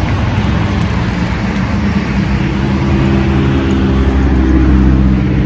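A motor vehicle engine running close by, a steady low hum that grows louder over the last couple of seconds.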